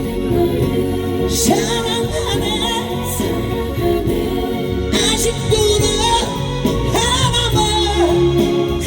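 Backing music of a Korean pop song performed live, playing through the stage speakers between sung verses: a wavering melody line over steady accompaniment.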